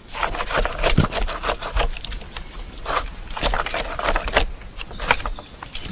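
A wooden stick jabbed repeatedly down into a hollow in a tree branch, scraping and knocking against the wood in short, irregular strokes, the way a chimpanzee probes a cavity with a hunting spear.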